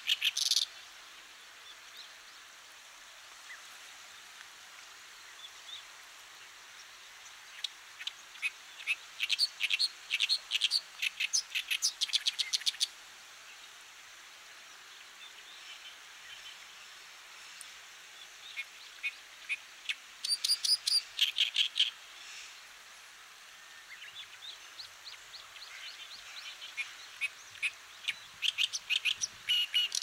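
Oriental reed warbler singing: phrases of rapid, repeated notes a few seconds long, with pauses of several seconds between them.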